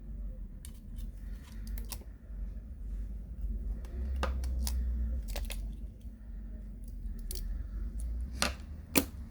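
Scattered small clicks and taps of a Samsung Galaxy S8 Plus being taken apart by hand with small tools, as flex connectors are unclipped and the motherboard is freed, over a low steady hum. The sharpest click comes near the end.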